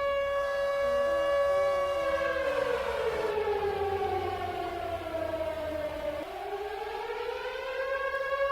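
Fire siren holding a steady high wail, then sliding down in pitch for about four seconds before climbing back up to its held note.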